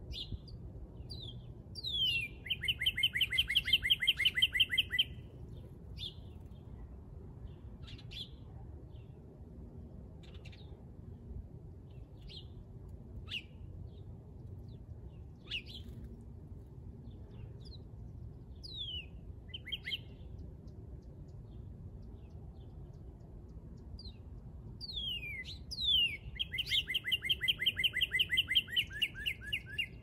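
A songbird singing twice: each song opens with a few downslurred whistles and runs into a fast series of repeated notes lasting a couple of seconds. Short single call notes are scattered between the two songs.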